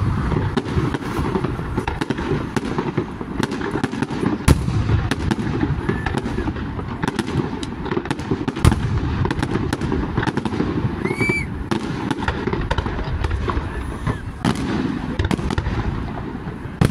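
Fireworks display: a dense, continuous run of aerial shell bursts and crackles, with heavier single bangs about four and a half and eight and a half seconds in.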